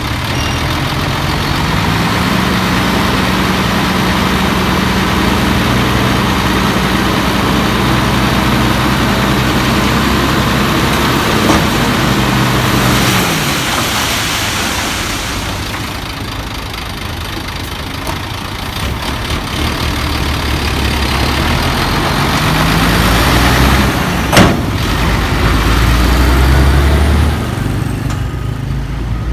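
Ten-wheel dump truck's diesel engine speeding up and held at raised revs while the hydraulic hoist tips the bed and the soil slides out, then dropping back about halfway through. Later the engine revs up again as the truck pulls away, with one sharp bang about three-quarters of the way in.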